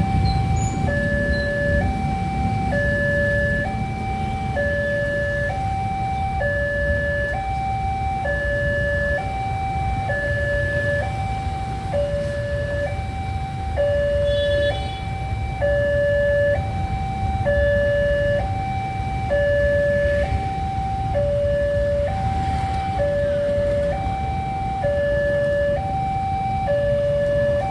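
Railway level-crossing warning alarm sounding a two-tone signal, high and low notes alternating in a steady, even cycle, which warns that a train is approaching and the crossing gates are down. A steady low rumble runs underneath.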